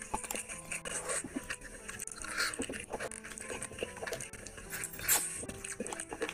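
Close-miked eating: wet chewing, lip smacking and sucking as a man bites into pieces of curried meat and rice eaten by hand, with many small clicks and two louder slurps, about two and a half seconds in and near the end.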